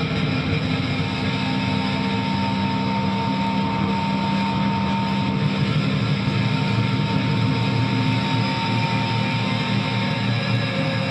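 Electric guitar played live through an amplifier as a loud, dense, sustained drone, with a thin steady high tone held over it until about ten seconds in.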